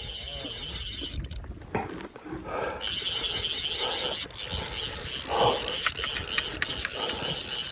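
Fly reel's drag buzzing steadily as a hooked Lahontan cutthroat trout pulls line off. It breaks off briefly, then starts again suddenly about three seconds in.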